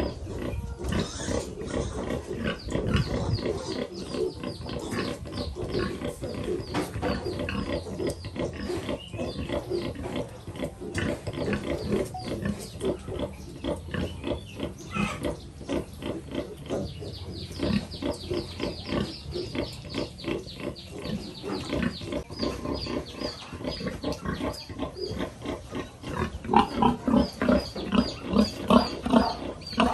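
Pigs grunting in a quick, steady rhythm, with high squeaks over it, while a sow nurses her litter of piglets. Near the end the grunts get louder and more widely spaced.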